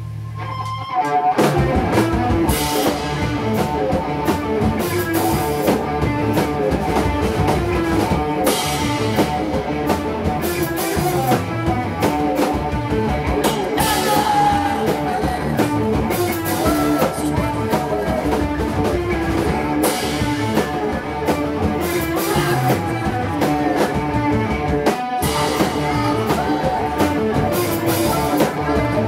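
A live rock band playing loud, with electric guitars, bass and drum kit. A held low note gives way to the full band about a second in, and the band breaks off briefly about three-quarters of the way through before crashing back in.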